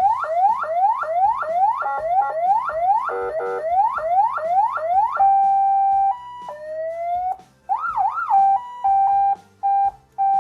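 CJB 200 W nine-tone electronic siren sounding through its loudspeaker: a fast rising sweep repeating about three times a second. About halfway through it switches to other tones: a held steady tone, a slow rising sweep, a quick up-and-down wail, then a string of short beeps.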